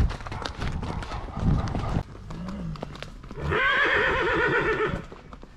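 Horse hooves clopping, then a horse whinnying: a wavering call of about a second and a half, starting a little past the middle.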